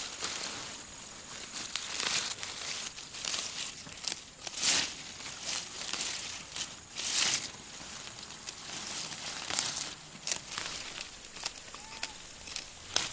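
Leafy greens being harvested by hand: leaves rustling and crinkling as plants are pulled from the soil and trimmed with a knife. It comes in irregular crackling bursts, the loudest about five and seven seconds in.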